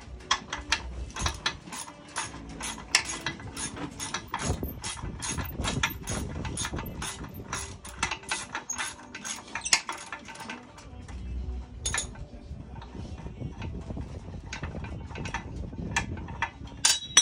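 Ratchet wrench clicking in quick, regular strokes, about three or four a second, as bolts are undone on the lower unit of an outboard motor. A single metallic clink comes near the end.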